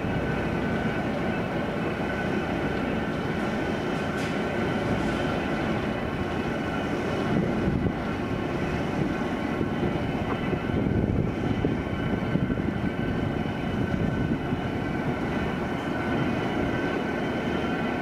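Steel bascule railway bridge's lifting machinery running as the counterweighted leaf moves: a steady low rumble with a faint constant whine over it.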